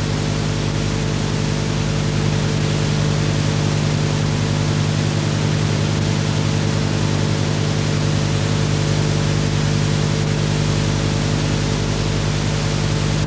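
Steady loud hiss with a buzzing mains hum, the noise floor of an old analogue videotape recording with no programme sound on it. It cuts off suddenly at the very end.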